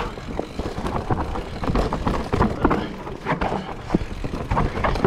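Mountain bike riding over rough forest singletrack: tyres rumbling on dirt, with frequent irregular clicks, rattles and knocks from the bike hitting roots and bumps.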